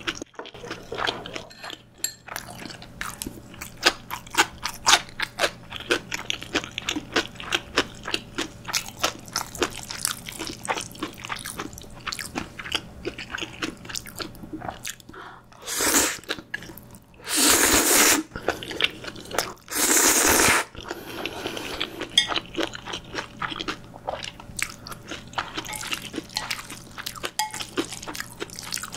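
Close-miked chewing of jjajang (black-bean sauce) instant noodles, with many small wet clicks and crunches, broken a little past the middle by three loud slurps of noodles.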